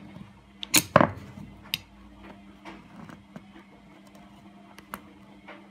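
An old steel chisel working at the seal of a 35 mm washing machine drum bearing, giving a few sharp metallic clicks and scrapes as it levers at the seal edge, the loudest about a second in. A steady low hum runs underneath.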